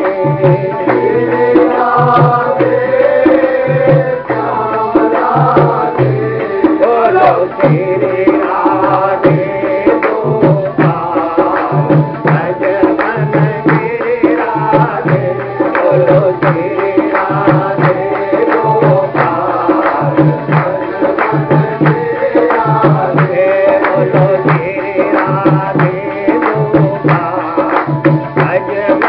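Devotional kirtan music: a hand drum keeps a steady, even beat under a continuous melody.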